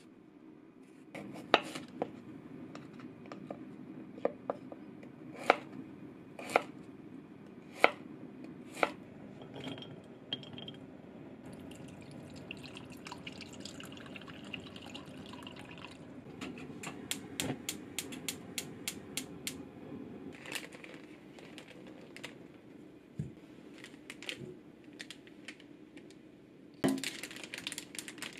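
Kitchen sounds: a knife chopping through daikon radish onto a cutting board in sharp single strokes, then broth poured into a clay pot, followed by a quick run of small clicks and a louder clatter near the end.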